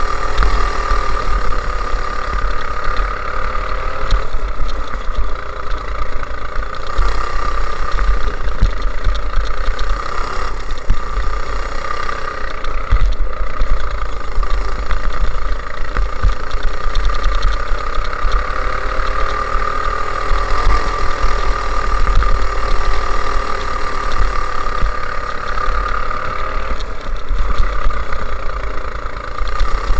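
Go-kart engine running at speed as the kart laps the track, its pitch rising and falling slightly through the corners, over a steady low rumble.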